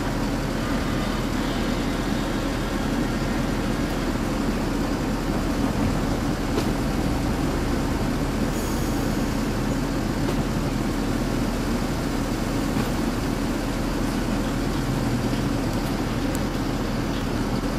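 Steady street noise of streetcars and road traffic running along a city tramway, an even rumble with a few faint clicks.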